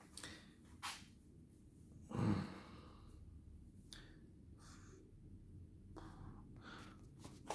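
A person breathing out heavily, like a sigh, about two seconds in, with faint clicks and rustles of handling.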